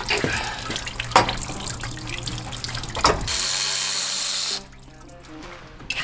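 Cordless impact wrench hammering on the crankshaft pulley bolt of a V8: a loud, even rattle lasting just over a second, starting about three seconds in, after a few knocks of tool handling. Background music follows near the end.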